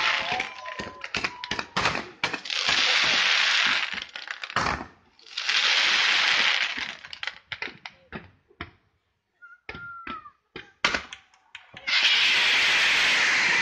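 Fireworks display firing: rapid cracks and bangs with long stretches of dense crackling hiss. The firing thins to scattered pops about eight seconds in, then comes back full near the end.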